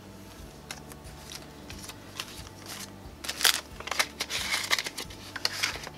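Cellophane sleeves and paper packaging being handled, with soft rustling and crinkling that starts about halfway through and grows busier toward the end.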